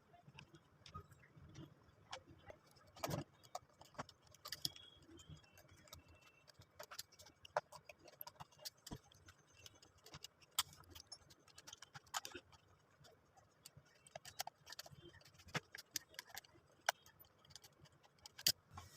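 Faint, irregular clicks and taps of hard plastic and metal parts being handled and fitted together as an electric drill is reassembled.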